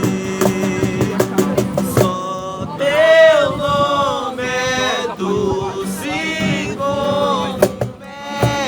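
Worship song sung by voices holding and bending a slow melody, over a steady percussive beat.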